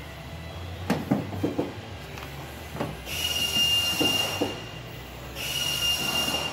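Pneumatic pop-rivet gun setting rivets in an aluminum canoe gunwale: a few clicks of the tool being placed, then two long hisses of air with a steady high whistle, each lasting about a second and a half to two seconds.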